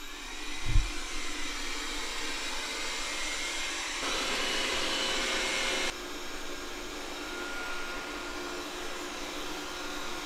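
Robot vacuum cleaner running: its suction fan whirs up with a rising whine at the start, then runs steadily as it drives across a tile floor. A single thump comes about a second in, and the sound changes abruptly about six seconds in.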